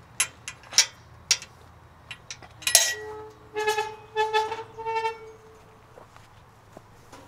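Footsteps of a walker, with one loud sharp knock, then three short pitched sounds of about a third of a second each, rich in overtones, from an unidentified source.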